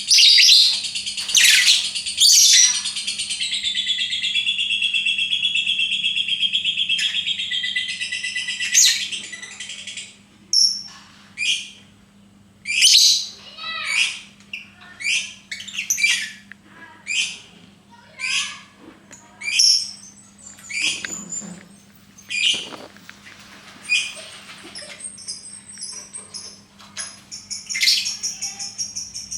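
Lovebird singing: a long unbroken, high trilling chatter (the 'ngekek' song) for several seconds, then single sharp chirps about once a second, then another sustained trill near the end.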